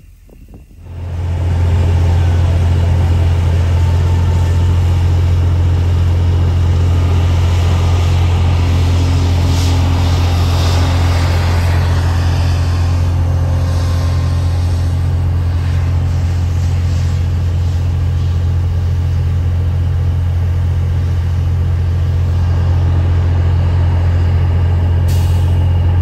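Truck engine running steadily, heard from inside the cab: a loud, even low drone that starts about a second in and holds unchanged throughout.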